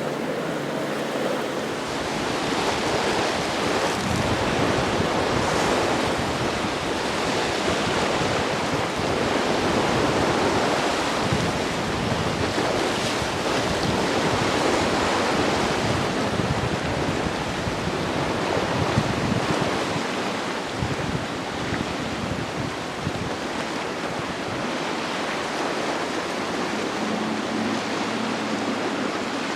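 Breaking waves and rushing sea water with wind buffeting the microphone, swelling and easing every few seconds.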